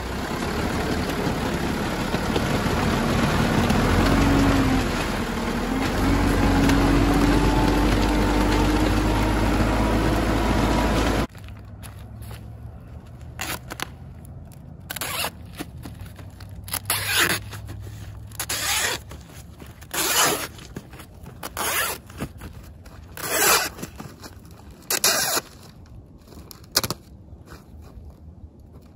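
A loader's engine running loud and steady as the machine works on crushed stone, its pitch dipping and then rising. It stops abruptly about eleven seconds in. After that comes a string of short, rasping scrapes, about one every second or two.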